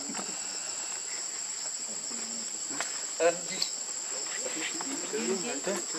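Steady high-pitched insect drone of a forest insect chorus, with a short squeaky call from a young monkey about three seconds in and a few soft calls near the end.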